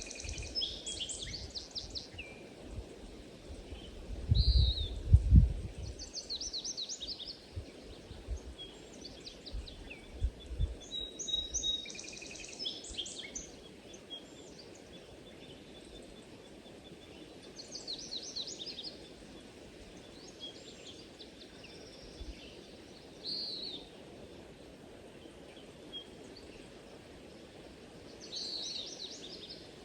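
Songbirds singing short trilled phrases every few seconds over a steady low background noise, with a brief low rumble about five seconds in.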